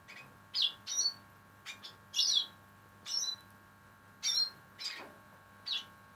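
Black siskins (Spinus atrata) giving short, high, wavering chirps, about nine in all, spaced half a second to a second apart.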